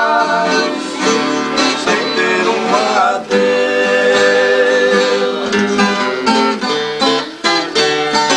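Two acoustic guitars playing a song together, plucked and strummed.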